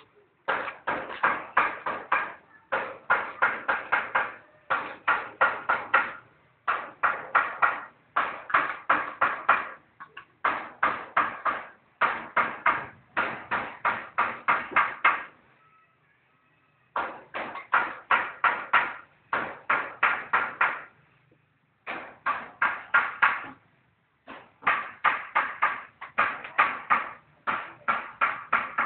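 Rapid sharp taps or knocks in bursts of about a second and a half, each burst several strokes long, with short pauses between bursts and a longer break about fifteen seconds in.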